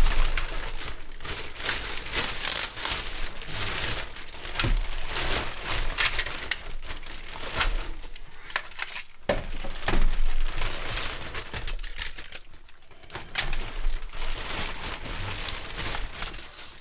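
Packaging being unwrapped and handled, with irregular crinkling and crackling and scattered sharp clicks, as keyboards are taken out of it.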